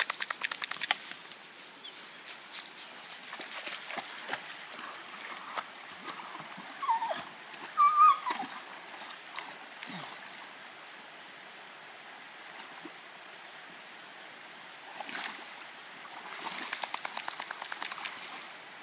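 A dog whimpering, two short high whines about seven and eight seconds in, over the steady rush of a shallow creek. At the start there is rapid scrabbling of paws on gravel, and near the end splashing as the dog paws around in the water.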